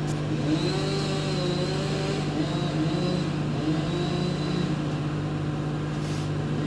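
Chainsaw running at high speed, cutting into the trunk of a dead horse chestnut tree to fell it; the engine note holds steady with small dips in pitch as it bites.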